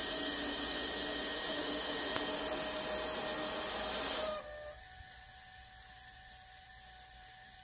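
Steady hiss of a piston cooling jet flow-test rig running at 30 PSI through a Milwaukee-Eight piston oiling jet. About four seconds in the flow is shut off and the hiss stops suddenly, leaving a faint hum.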